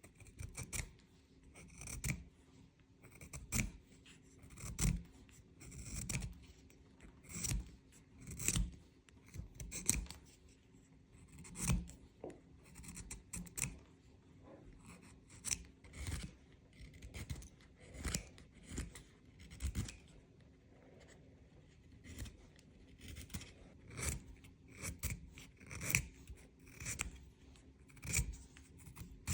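Wooden pencil being sharpened to a long point: short scraping cuts into the wood and graphite, repeating about once every second or so.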